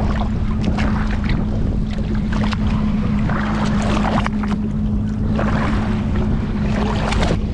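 Seawater sloshing and splashing against a boat's hull as a fish is held in the water by hand and let go, over a steady low hum and rumble.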